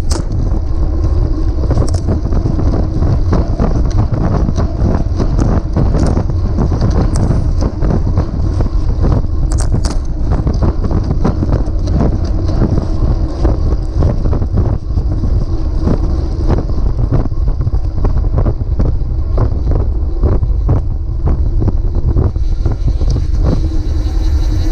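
Heavy wind rumble on a bicycle-mounted camera's microphone while riding along the road, with frequent short clicks and rattles from road vibration coming through the mount.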